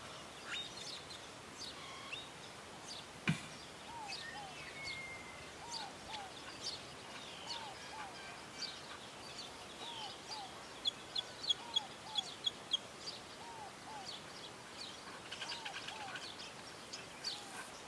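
Open-air background with small birds calling. A short arched call repeats, often in pairs, through most of it, and quick runs of high chirps come in the middle and again near the end. A single sharp click sounds about three seconds in.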